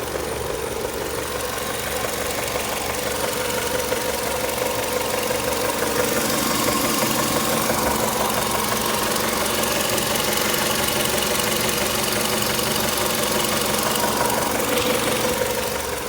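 Engine running steadily with a knocking noise whose source the owner cannot identify. It grows slightly louder about six seconds in.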